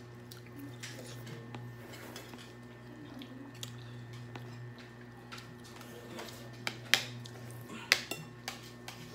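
Spoons and forks clinking against bowls during a meal: a few sharp clinks, loudest in the second half, over a steady low hum.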